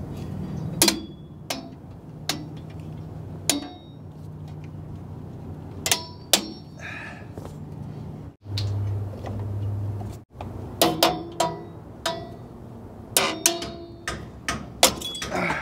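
Steel drum-brake hardware and hand tools clinking and clanging while rear brake shoes are fitted: a run of sharp metallic clinks, some ringing briefly, coming faster near the end. A short steady low hum sits in the middle between two abrupt cuts.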